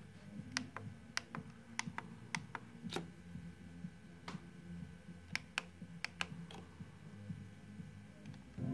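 About a dozen sharp, irregular clicks, some in quick pairs, over a steady low hum.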